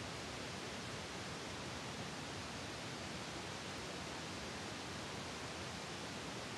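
Steady, even hiss with no other sound: the recording's background noise.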